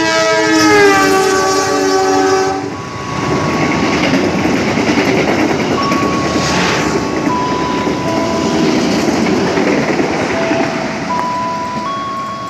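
Diesel locomotive hauling a passenger train sounds a long chord on its multi-tone horn for about the first two and a half seconds. Then the train passes with a steady rumble of wheels on rails.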